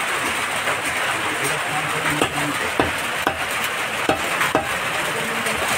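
A knife cutting raw chicken on a chopping block: irregular sharp taps and clicks of the blade against the block over steady market background noise, with faint voices.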